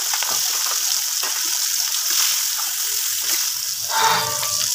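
Hilsa fish pieces frying in hot oil in a kadai: a steady high sizzle with a few small spattering crackles.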